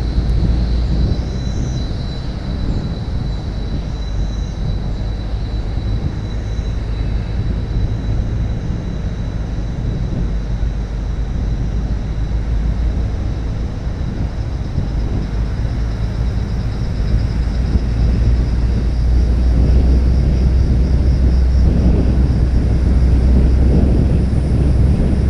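Steady low rumble of wind and road noise from travelling along a road, growing a little louder in the last few seconds.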